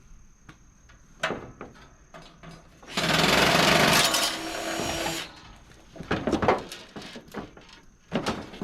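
Hand-work on the sheet-metal casing of a PTAC unit: scattered metal clicks and knocks, with a loud harsh grating burst lasting about two seconds about three seconds in, then more clatter.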